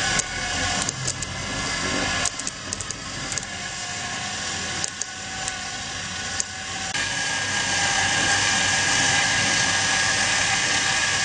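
Steady whir of a small battery-powered robot's DC drive motors running, with scattered light clicks and knocks in the first half. A little past halfway the whir steadies and becomes slightly louder, with a thin steady whine added.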